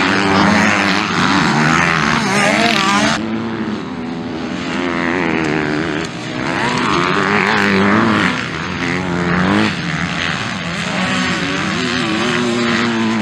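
MX2-class (250cc) motocross bike engines revving hard, pitch climbing and dropping repeatedly as riders accelerate, shift and back off over jumps and corners. The sound changes abruptly about three seconds in and a few times after, where clips are spliced together.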